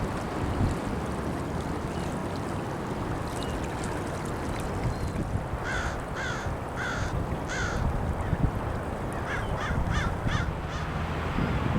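A crow cawing: four harsh caws about two-thirds of a second apart, then a quicker run of about five shorter caws, over a steady wash of surf and wind.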